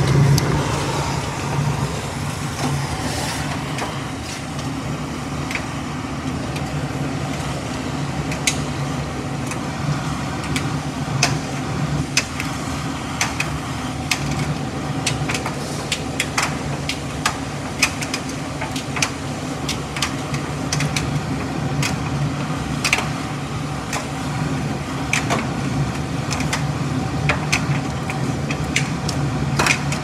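Miele PT 5136 tumble dryer running with its door open: a steady hum from the machine, with the turning drum and the clothes tumbling inside giving irregular clicks and knocks.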